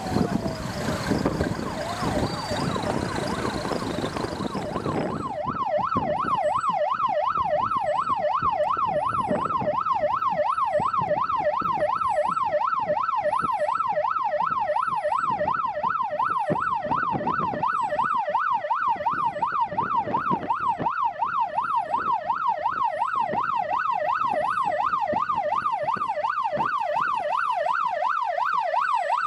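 Vehicle siren. For about the first five seconds it gives a slow wail under loud wind and road noise. Then the noise cuts off suddenly and the siren switches to a rapid yelp, rising and falling about three or four times a second.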